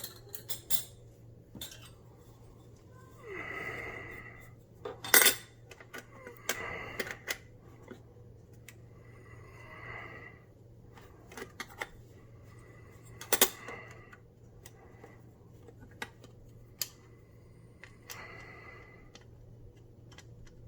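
Scattered metal clicks and taps with a few short scraping sounds as the cover is put back over the wiring compartment of an InSinkErator garbage disposal. The loudest taps come about five seconds in and again about thirteen seconds in.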